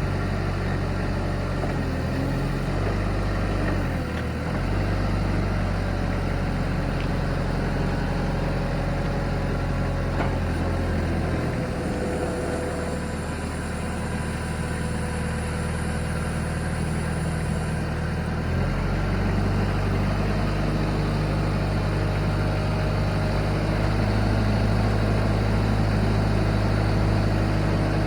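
Diesel engine of a Toyota 4FD20 2-ton forklift running at idle, its note changing several times. It goes lower and rougher for several seconds in the middle, with a faint high whine above it, then settles steadier and a little louder.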